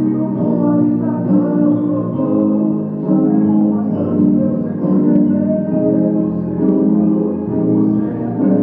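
Yamaha digital keyboard played with both hands: a run of sustained chords, each held for about a second before the next.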